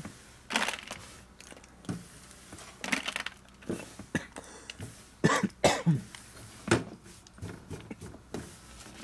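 Metal transmission parts being handled on the bench: irregular short knocks and clinks, about a dozen in all, loudest in a cluster a little past the middle.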